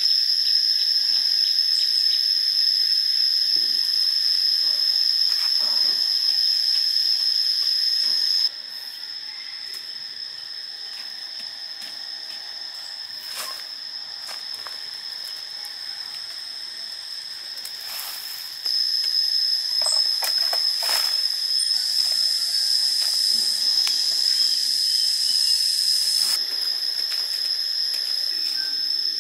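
Steady, high-pitched drone of forest insects, dropping in level for about ten seconds in the middle and then returning. Faint scrapes and knocks of a wooden stick digging into soil come now and then beneath it.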